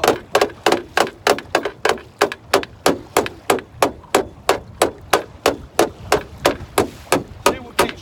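Steady, rhythmic knocking on a metal boat's hull, about three or four blows a second, beaten on purpose to stir up white perch below the boat.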